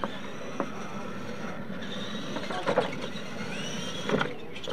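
Electric radio-controlled monster trucks (retro Clod Buster-style) running on a dirt track: a steady motor and gear whine, with a rising whine as one throttles up about three and a half seconds in. Sharp knocks and clatters from trucks landing and bumping, loudest about two and a half seconds in and again just after four seconds.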